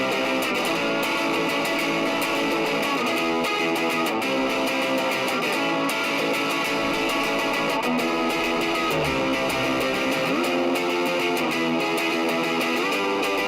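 Guitar music, strummed and plucked, playing steadily.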